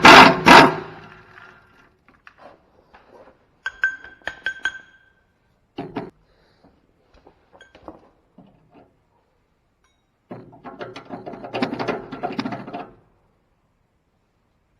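Hand tools working on the steel auger housing of a grinder-mixer. It opens with a few hard hammer blows on metal. A few ringing metallic clinks follow about four seconds in, then a single knock, and near the end about three seconds of metal parts rattling and scraping.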